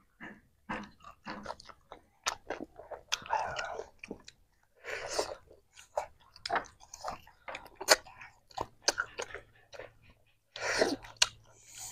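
Close mouth sounds of eating: chewing and gnawing cooked chicken meat off the bone, with irregular sharp clicks and short wet bursts.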